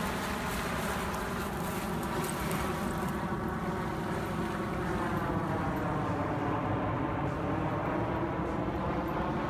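Twin-engine jet airliner flying low overhead: a loud, steady engine drone made of many tones that slowly shift in pitch as it passes, over a deep rumble.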